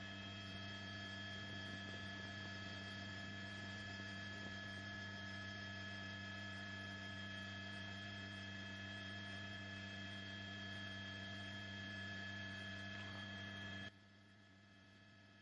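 Steady electrical hum with a buzz of several high steady tones above it, dropping away suddenly about 14 seconds in to a faint leftover hum.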